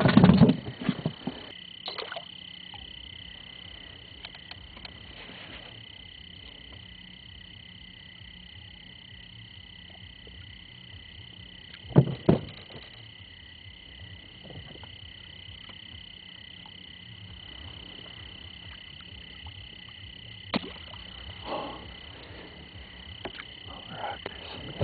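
Steady night chorus of calling insects and frogs, a constant high-pitched drone. A few sharp knocks break it, the loudest about twelve seconds in.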